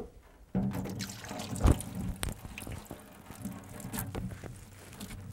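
Salt-wilted shredded cabbage, wet with its own juice, tipped out of one plastic container into a plastic fermentation container, sliding and dropping in wet clumps. A sharp knock comes at the start and a heavier thump about a second and a half in, with small clicks after.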